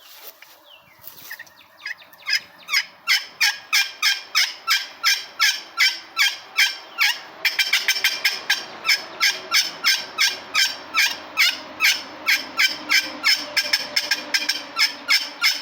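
Turkey pot call played on its black anodized aluminum surface with a striker: a long, even run of sharp, pitched hen-turkey notes, about three a second, starting about two seconds in and speeding up briefly around the middle.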